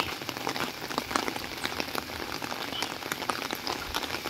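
Steady rain falling, a dense stream of separate drop ticks over an even hiss.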